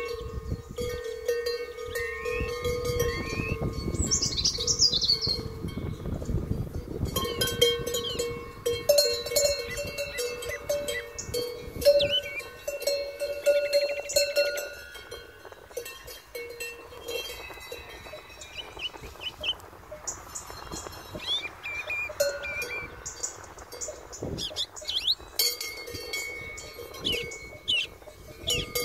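Large metal cowbells on cows' collars clanking and ringing irregularly as the cows move and graze.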